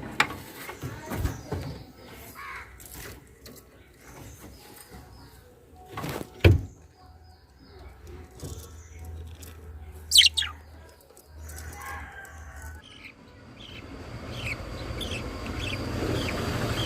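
Pet lovebirds chirping, with scattered knocks and a sharp falling high call about ten seconds in; the loudest sound is a knock about six and a half seconds in, and a hiss grows toward the end.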